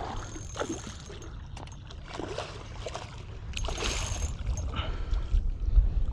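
Hooked redfish thrashing and splashing at the water's surface beside a kayak, in irregular bursts that grow more frequent and louder toward the end, over a steady low rumble.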